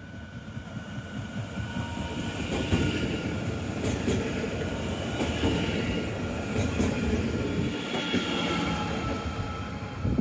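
Class 442 Talent 2 electric multiple unit running through the station without stopping: the rumble of its wheels on the rails builds as it approaches and stays loud as it passes, with a steady high whine and a few sharp clicks.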